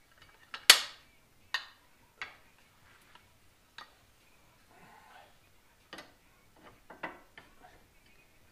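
Irregular metal clicks and knocks as a Caltrac traction bar and leaf spring assembly is handled and fitted together by hand. The loudest knock comes just under a second in, and smaller ones follow every second or so.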